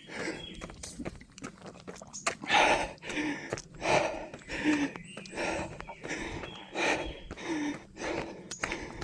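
A runner's breathing while climbing a mountain trail, a loud breath about every second.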